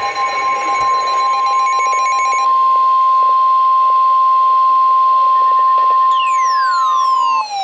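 NOAA Weather Radio 1050 Hz warning alarm tone: one steady, loud, high beep held for about seven seconds, then cut off. It signals that a warning message follows. Near the end a second tone starts, sliding steadily downward in pitch.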